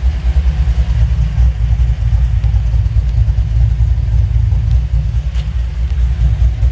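Chevy C10's LS V8 engine idling with a steady, uneven low rumble.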